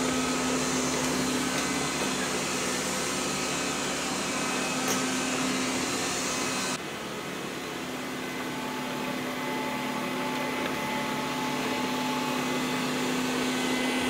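Tesvor A1 robot vacuum running on its quietest suction setting: a steady motor hum with a held whine, which drops a little in level and turns duller about halfway through.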